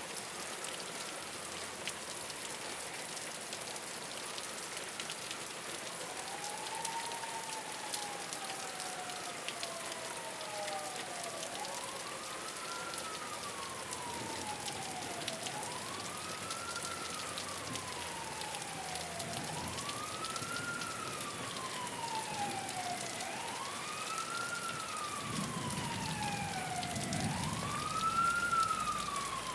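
Steady rain falling on a rooftop. About six seconds in, an emergency-vehicle siren wails in: it rises quickly and falls slowly about every four seconds and grows louder toward the end, with a low rumble under it near the end.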